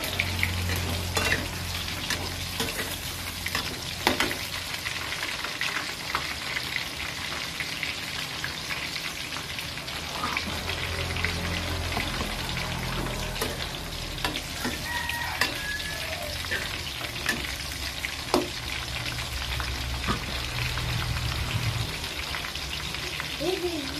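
Eggplant and green chillies frying in a wok, with a steady sizzle and a metal spatula stirring and now and then knocking against the pan. A low hum runs underneath.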